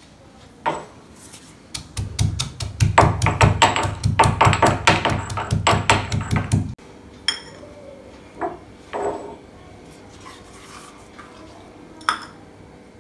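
Stone pestle pounding Indian gooseberry, green chilli and salt coarsely in a stone mortar: a fast, even run of strikes, several a second, lasting about five seconds and stopping abruptly. A few single knocks follow.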